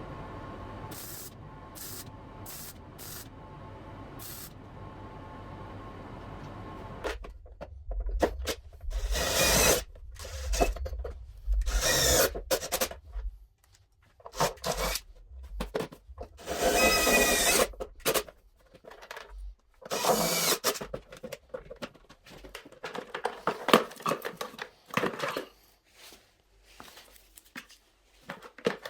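Power-tool work in short bursts of a second or two, with a whine that shifts in pitch, after a low steady hum for the first seven seconds.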